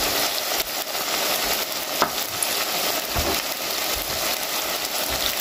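Chicken wings, onion and carrot sizzling steadily as they fry in oil in a pan, the meat-and-vegetable base of a plov. A couple of light clicks come about two and three seconds in.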